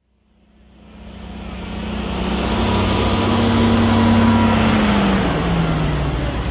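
Heavy truck engine fading in and running steadily, its pitch easing down about five seconds in.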